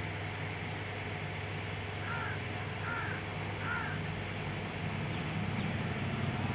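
A bird calls three times, short calls a little under a second apart, over a steady low hum.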